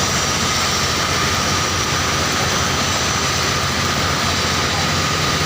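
Stick (shielded metal) arc welding on pipe: the arc's steady crackling hiss, unbroken throughout, with a steady low hum underneath.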